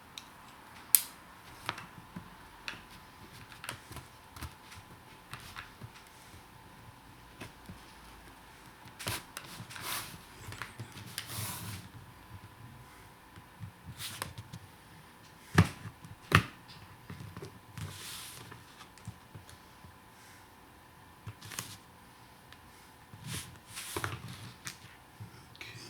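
Cutting into and handling a cloth-covered plastic car sun visor with a blade: scattered sharp clicks and knocks, with a few short scraping stretches.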